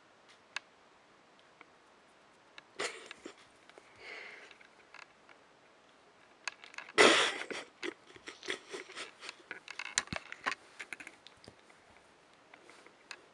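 Bedsheet rustling and scattered small clicks and scratches as a kitten wrestles with a hand on a bed. The loudest is a short rustle about seven seconds in, followed by a busier run of small scratches and rustles.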